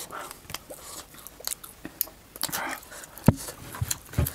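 People chewing and biting into grilled buffalo meat, with many short wet mouth clicks and smacks. Two louder low thumps come about three and four seconds in.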